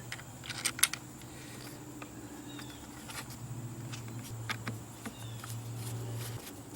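Light clicks and taps of plastic housing parts and wires being handled and fitted into a trolling motor head, the loudest a pair of clicks just under a second in. A steady low hum runs underneath and stops shortly before the end.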